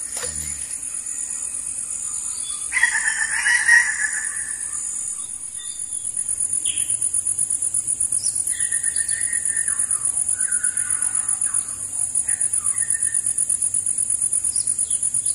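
A steady, high-pitched insect drone pulsing rapidly, with a loud bird call about three seconds in that lasts about two seconds, then several shorter bird calls later on.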